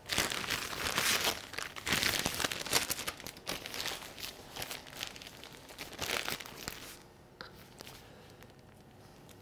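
Plastic piping bag crinkling and rustling as it is filled with coconut meringue and twisted shut. The rustling is loudest in the first few seconds and dies down about seven seconds in.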